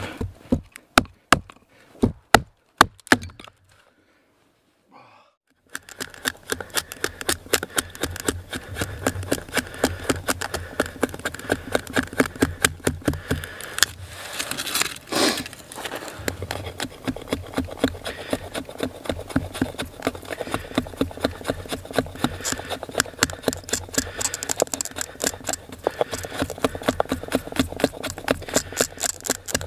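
A Hultafors Hultan hatchet's blade striking a stick in several sharp separate knocks, then, after a short pause, shaving curls down a stick in quick scraping strokes, about four a second, as a feather stick is carved.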